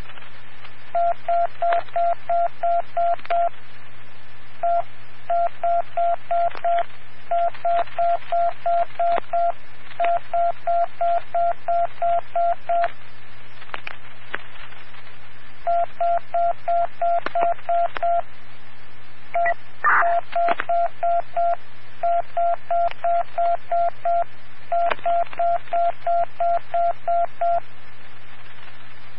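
Fire department dispatch radio sending box-alarm tones: evenly spaced beeps at one pitch in counted groups, nine, then one-five-seven-nine, sent twice, striking out ninth alarm for box 1579. A steady radio hum and hiss run underneath, with a brief crackle about twenty seconds in.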